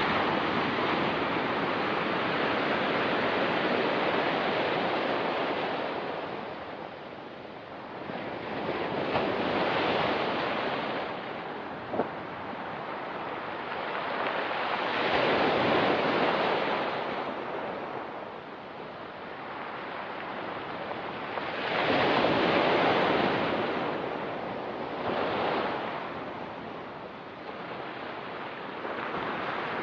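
Ocean waves washing in and out over a rocky pebble beach, the surf swelling and fading in slow surges every several seconds. A single brief click about twelve seconds in.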